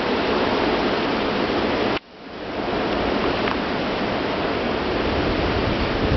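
Strong wind blowing hard in a snowstorm, a steady rushing noise on the microphone. About two seconds in it drops away suddenly and swells back up.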